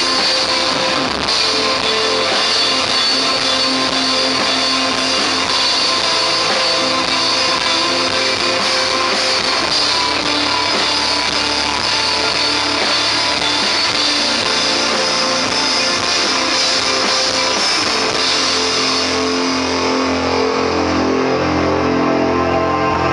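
Live rock band playing loud and dense, with electric guitar, bass guitar and drum kit. About eighteen seconds in the treble thins out and low bass notes come forward.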